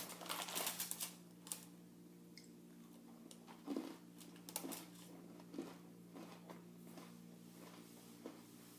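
Crunching bite into an Oreo cookie, a quick cluster of crisp crackles in the first second, followed by a few short, softer chews spaced about a second apart. A steady low hum runs underneath.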